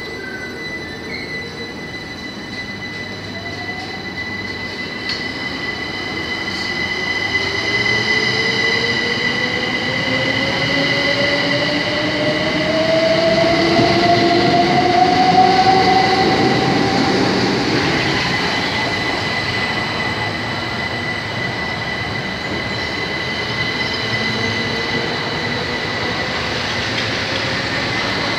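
Southern electric multiple-unit train moving through the platform, getting louder to a peak about halfway through, with a slowly rising electric motor whine over steady wheel and rail noise and a constant high-pitched whine. The climbing pitch is the sign of the train gathering speed.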